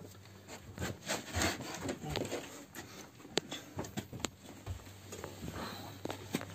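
Handling noise of fuel injectors and fuel rails in a cardboard box: cardboard rubbing and scattered light clicks of small parts, over a steady low hum.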